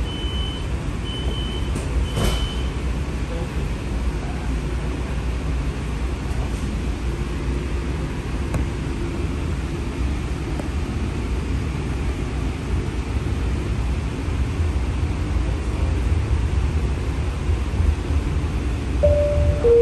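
Inside a streetcar: a few short high door-warning beeps end with a sharp click as the doors shut about two seconds in, then the car's steady low running rumble as it moves off. Near the end a two-note falling chime begins.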